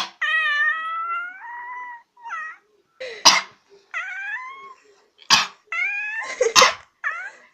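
A domestic cat meowing in drawn-out calls in answer to a person's coughing. One long call of about two seconds opens, then shorter meows follow each of three short coughs.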